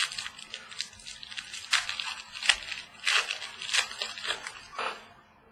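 Trading card pack wrapper crinkling and cards being flicked and shuffled by hand, a quick run of papery rustles and crackles that dies away about five seconds in.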